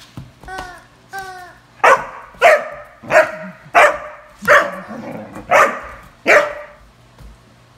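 Rubber chicken squeaky toy being chomped by a Doberman puppy: a few short squeaks, then seven loud squawks about two-thirds of a second apart.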